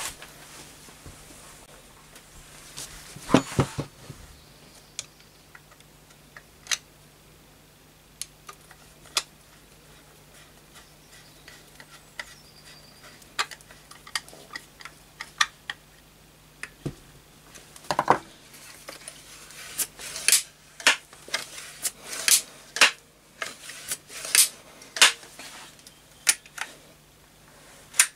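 Scattered metal clicks and knocks from a Setra pump-up air rifle being handled and put back together, with a screwdriver working a screw in the wooden stock. The clicks come faster and louder over the last third as the action near the breech is worked.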